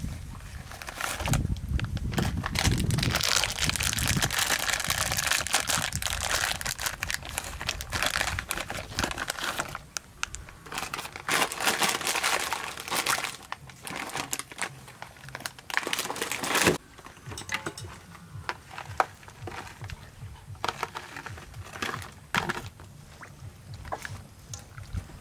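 Plastic snack-style packets of dried soup ingredients crinkling and tearing as they are opened and shaken out over a bowl of water, loudest in the first half. Later come sparser small clicks and splashes as hands work the soaking ingredients in the water.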